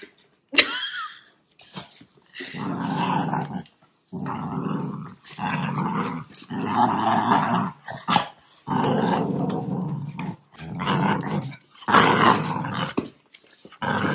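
Cavalier King Charles spaniels play-growling in repeated rough bouts, each about a second long with short breaks between, while mouthing and tugging at a gloved hand during rough play.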